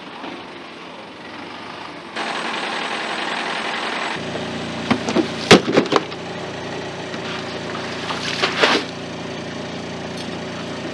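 A motor running steadily, with several sharp knocks and clatters about five to six seconds in and again near eight and a half seconds.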